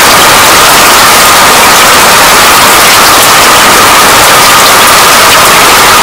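Steady rain, a loud, even hiss with a few faint scattered ticks.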